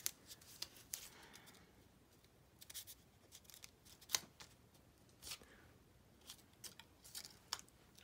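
Small pieces of kraft cardstock being handled, pressed and set down on a table: scattered soft taps and paper rustles, the loudest about four seconds in.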